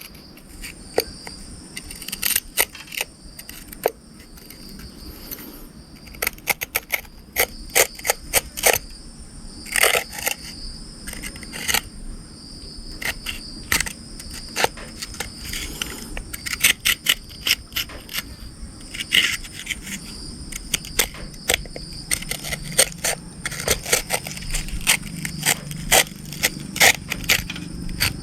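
Mud and dirt being scraped and picked off a mud-covered RC car: irregular crackling clicks and scrapes, in quick clusters.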